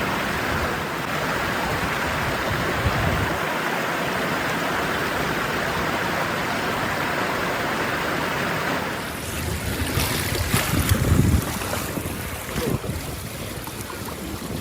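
Steady rush of flowing river water. About nine seconds in the sound drops and turns rougher, with low gusts of wind buffeting the microphone and a few knocks.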